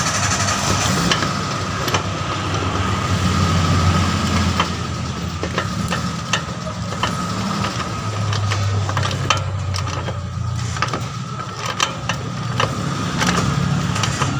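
A vehicle engine idling steadily, with scattered sharp metal clicks as a socket wrench on a long extension is worked on a bolt.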